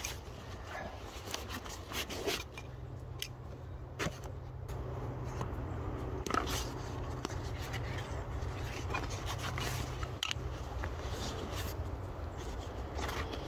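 Irregular scraping and rustling with scattered short clicks, over a steady low rumble.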